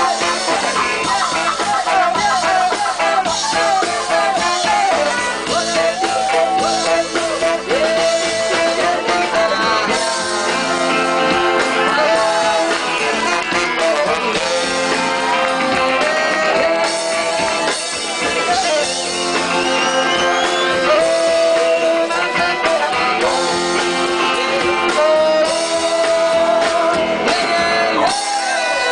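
A live ska-rock band playing loud: trombone, electric guitars, bass, keyboard and drums, with a melody line of held, sliding notes and some singing.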